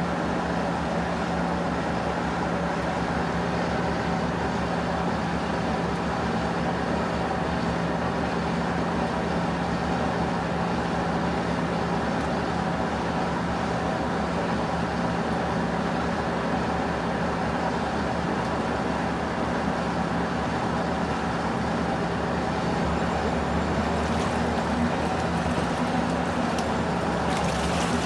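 Electrolux Prosdócimo washing machine running through its rinse cycle: a steady motor hum under a constant churning noise. A higher hiss joins in about 24 seconds in.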